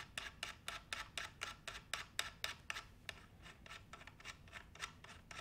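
Threaded metal end plug being unscrewed from an FX Wildcat Mk2 air rifle's barrel shroud: a run of faint, quick metal clicks, about four a second, that grow softer about three seconds in.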